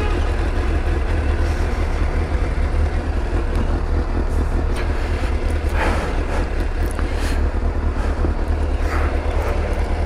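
Motorcycle engine running steadily, a constant low rumble with wind and road noise over it, and a few brief rustles about six and nine seconds in.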